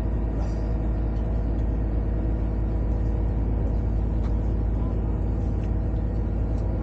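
Car ferry's engine running with a steady low drone and deep rumble.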